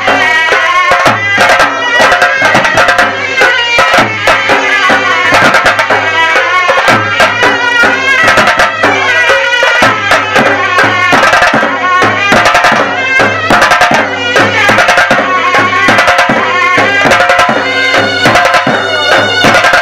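Traditional Gilgit-Baltistan folk dance music played loudly: fast, dense drumming under a sustained melody line.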